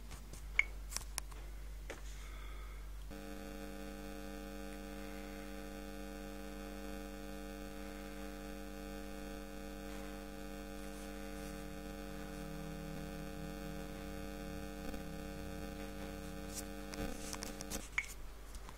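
A steady electronic hum made of several held tones starts suddenly about three seconds in and cuts off abruptly near the end, with a few faint clicks just before it stops.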